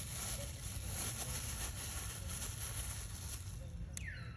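Steady outdoor background noise: a low rumble under a constant high hiss. Near the end there is a sharp click, then a short high call falling in pitch.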